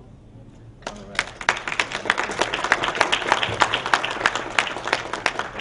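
Audience applauding: many hands clapping at once. It starts abruptly about a second in and thins out near the end.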